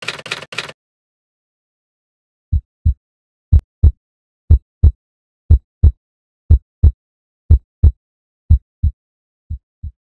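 Typewriter key clicks that stop within the first second, then a heartbeat sound effect: eight lub-dub pairs of low thumps about once a second, the last pair fainter.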